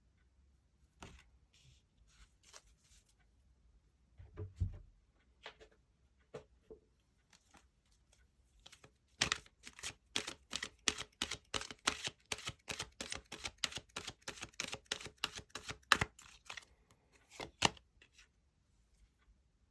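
Tarot cards being handled: scattered soft taps and slides, then from about nine seconds in a quick, even run of card clicks, around five a second, with two louder slaps near the end.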